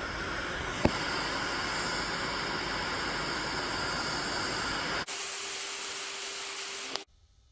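Angle grinder cutting through a seized rear subframe bolt that spins without unscrewing, a steady hissing grind. The sound changes about five seconds in, taking on a single steady tone, and stops abruptly near the end.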